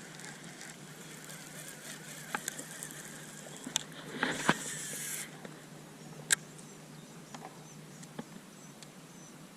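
Steady low hum of an electric trolling motor, with scattered small clicks of fishing tackle, a brief rushing hiss about four seconds in and a sharp click a little after six seconds.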